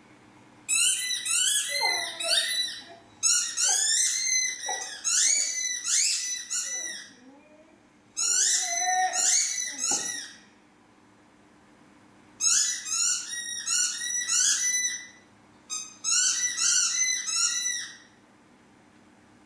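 A dog's squeaky toy squeaking over and over as the dog chews it: quick runs of shrill squeaks in five bouts, with short pauses between them.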